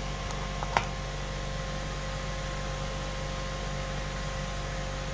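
Steady electrical hum with a fan-like hiss, holding a few fixed tones, and a single light click about a second in.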